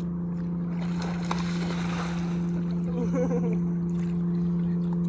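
A steady low hum holding one pitch, like a motor running at constant speed, with a brief faint voice about three seconds in.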